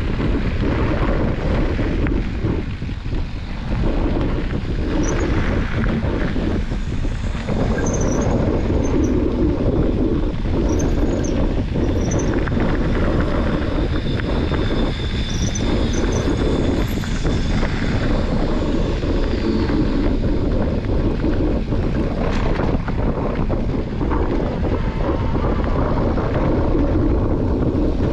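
Wind rushing over the microphone of a camera mounted on a mountain bike, with steady tyre noise on the gravel trail and occasional knocks as the bike rides over bumps.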